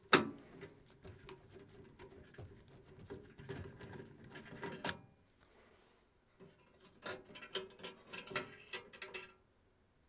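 Small metal clicks and scrapes of a screwdriver backing out the flame rod's mounting screw on a gas furnace burner bracket. They come in two spells: a sharp click at the start, then a short lull about halfway, then more clicking.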